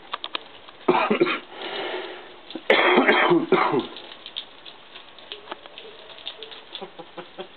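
Two loud hissing bursts of water from a garden hose spraying a cat and the hedge she sits in, about two seconds apart, followed by faint patter and dripping.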